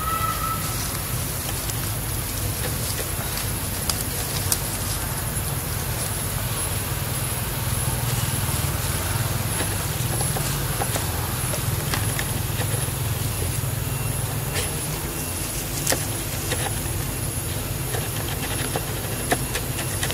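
Steady low rumble of outdoor background noise, with a few faint clicks scattered through it.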